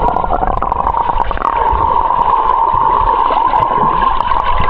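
Water gurgling and sloshing around a swimmer who has just jumped in. A steady hum sets in about a second and a half in.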